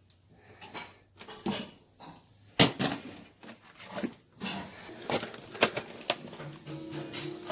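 Metal clicks, clinks and knocks of deadbolt hardware being handled and fitted into a door, with the sharpest knock about two and a half seconds in.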